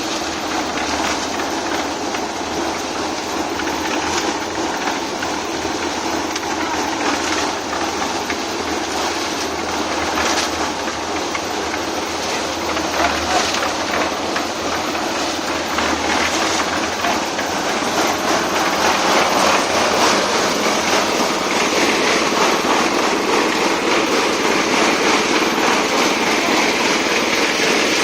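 A machine running steadily under a continuous rattling clatter, getting a little louder about two-thirds of the way through.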